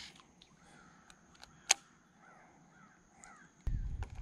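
Faint, short bird calls repeated several times. There are a few small clicks and one sharp click a little before halfway. A low rumble comes in during the last half second.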